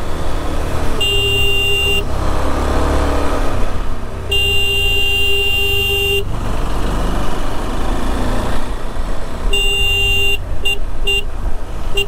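KTM 390 Adventure motorcycle's horn honked repeatedly, warning oncoming traffic on blind bends of a narrow single-lane road: a one-second honk, a two-second honk, another one-second honk, then three quick toots near the end. Under it the bike's engine and wind rumble steadily.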